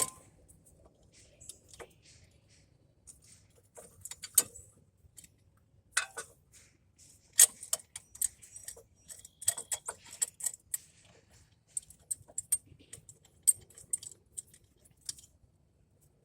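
Scattered light metallic clinks and rattles of tools and brake caliper hardware being handled while the caliper piston is pushed back in, with a few sharper clanks about 4, 6, 7 and 13 seconds in.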